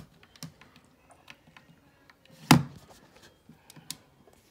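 Scattered light clicks and taps from a computer keyboard and mouse, with one sharp, much louder knock about halfway through.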